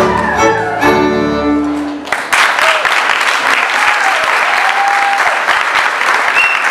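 A live Hungarian folk band of violin and double bass plays the last bars of a dance tune and stops abruptly about two seconds in. Audience applause follows straight after.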